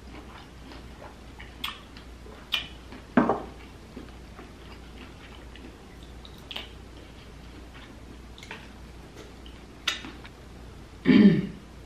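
Close-miked eating: a person chewing king crab meat, with scattered wet mouth clicks and two louder mouth sounds, about three seconds in and near the end.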